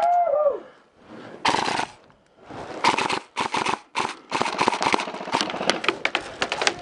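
Airsoft guns firing full-auto bursts with a rapid mechanical rattle: one short burst about a second and a half in, then burst after burst in quick succession for the rest. A brief yell opens it.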